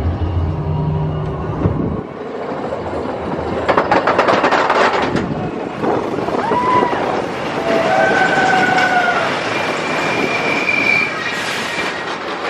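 Expedition Everest roller coaster train running fast along its track, heard from a seat on board: a steady rush and clatter, with several high, drawn-out squealing tones partway through.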